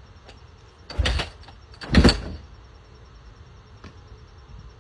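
Two short rushing bursts about a second apart from a supermoto dirt bike being cranked over, and the engine does not catch.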